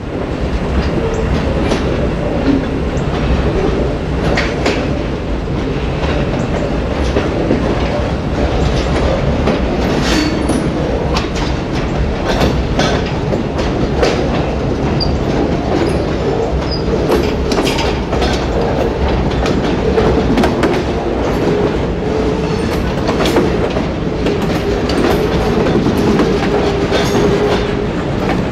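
The two ex-Santa Fe GE B23-7 diesel locomotives moving through the rail yard: a steady heavy diesel rumble, with many sharp clicks and knocks from wheels on the track and a faint on-and-off high tone.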